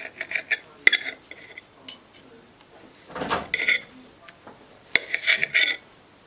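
Table knife and fork cutting through a toasted egg-and-cheese sandwich, the metal scraping and clinking against the plate in three short bursts, each with a sharp click.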